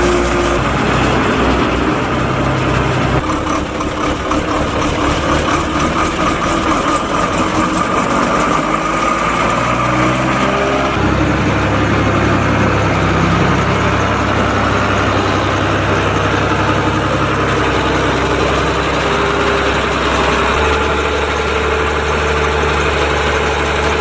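Heavy diesel farm machinery running steadily through a maize silage harvest. The first part comes from the forage harvesting as chopped maize is blown into a forage wagon. About eleven seconds in the engine sound changes sharply to a New Holland tractor working a maize leveller on the silage clamp.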